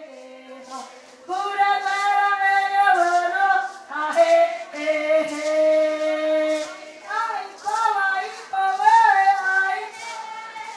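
A high-pitched voice singing a slow melody in long, held notes.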